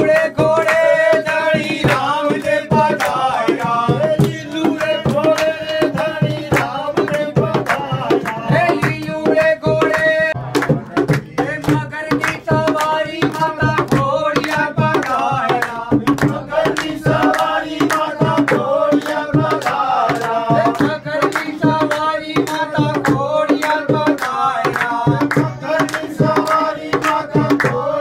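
Devotional aarti song sung to the steady rhythm of a dholak, a two-headed barrel drum played by hand.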